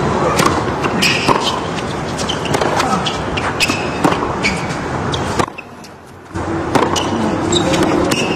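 Tennis rally on a hard court: sharp racket strikes on the ball and short shoe squeaks over a steady crowd murmur, with the sound dropping away briefly a little past five seconds in.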